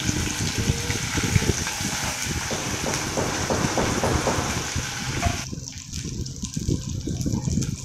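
Dried anchovies sizzling as they fry in hot sesame oil in a clay pot, with a spatula scraping and knocking in the pot as they are stirred. About five seconds in the sizzle's hiss drops away sharply, leaving the stirring knocks.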